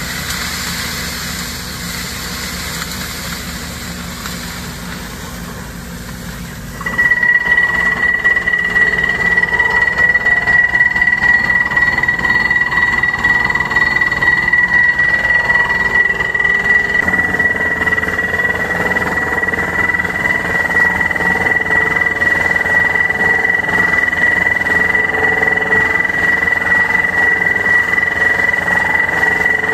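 Tracked borehole drilling rig running while it drills a deep heat pump borehole. About seven seconds in the sound jumps louder, with a fast rattling beat from the drilling and a steady high-pitched whine over it, which fits a down-the-hole button-bit hammer working at depth.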